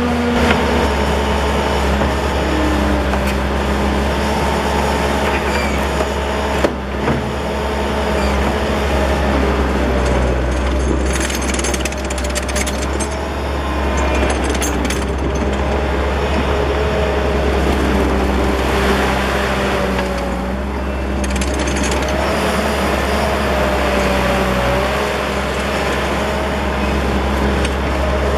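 Terex PT70 tracked skid steer loader's diesel engine running steadily, with a wavering whine over the engine hum and continuous clatter from the machine. A single sharp knock comes about seven seconds in.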